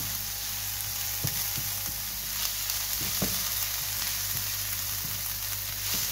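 Sliced onions and whole spices sizzling in oil in a non-stick frying pan, with a few soft scrapes as a silicone spatula works them around. The onions are being sweated down with the spices toward caramelizing.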